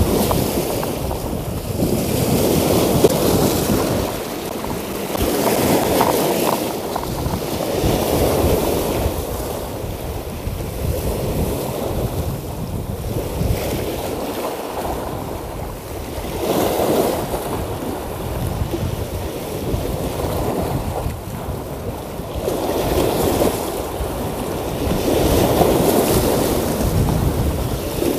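Sea waves surging and washing over rocks, swelling and easing every two to three seconds, with wind buffeting the microphone.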